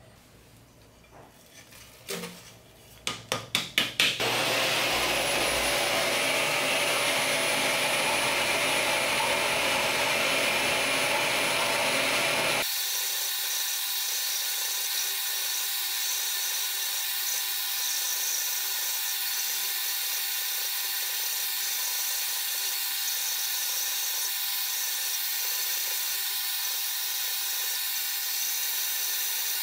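A few knocks, then a cordless stick vacuum's motor starts up and runs steadily with a high whine. About a third of the way in the sound changes abruptly to a different steady motor hum, with the vacuum nozzle held at the work while a slot is filed.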